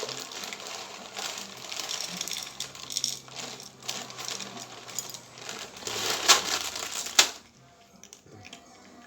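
Dry cat food clicking and rattling in quick irregular clicks, with two sharper clicks near the end before it stops.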